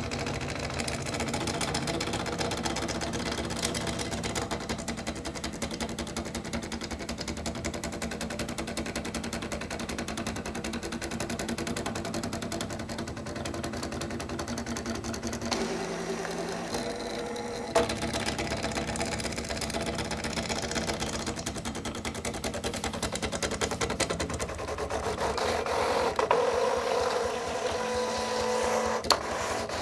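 1989 Laboratorní Přístroje Praha XY4160 pen plotter's motors running as the pen arm sweeps across the paper drawing curves. It makes a continuous mechanical buzz whose pitch shifts as the moves change, with a few sharp clicks.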